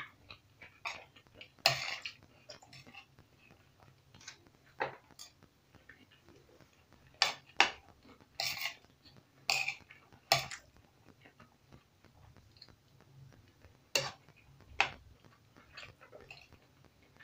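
Metal spoon clinking and scraping against a plate as rice and stir-fry are scooped up. The clinks come irregularly, with a quick run of them around the middle.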